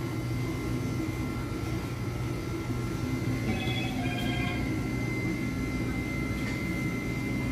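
Steady low room hum with faint, constant high-pitched tones running over it, and two short high tones close together around the middle.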